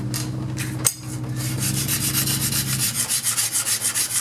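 Rapid, even rubbing and scraping of a bench plane's steel blade or chip breaker on an abrasive during sharpening and flattening. A steady low hum runs beneath it and stops about three seconds in, and there is a single sharp click about a second in.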